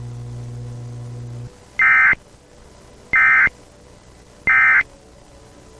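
Emergency Alert System end-of-message signal: three short, loud bursts of warbling data tones (the digital 'NNNN' EOM code) about a second and a third apart, marking the end of the Civil Emergency Message. A low steady hum cuts off about a second and a half in, just before the first burst.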